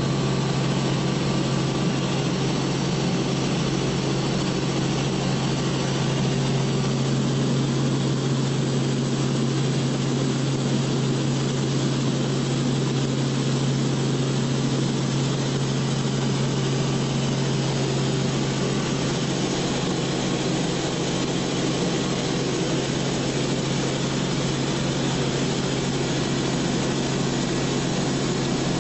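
Light aircraft engine droning steadily, heard from inside the cabin: a constant hum under a hiss of air noise.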